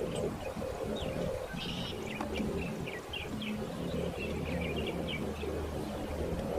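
Small birds chirping, with many short, quick calls throughout over a low steady hum.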